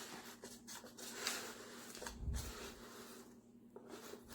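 Hands handling a hair crimper and its packaging: soft rubbing and rustling scrapes, with a dull low thump about two seconds in.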